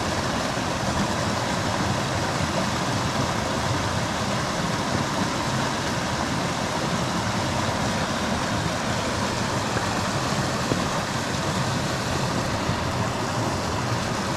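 Small forest stream running over a riffle and low cascade: a steady, even rush of water.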